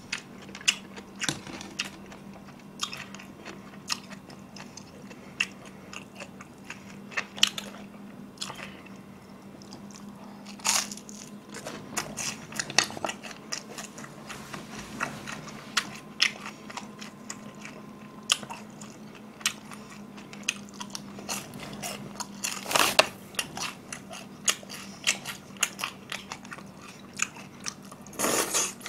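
Close-miked biting, chewing and crunching of crispy glutinous-rice-battered sweet and sour pork, with sharp crackles and wet mouth sounds throughout. A few louder, noisier bursts come at about eleven, twenty-three and twenty-eight seconds in. A faint steady hum runs underneath.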